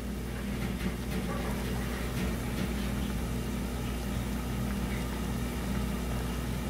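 Steady low hum and faint hiss of the stove heating a large pot of fish cake soup as it comes up to a simmer.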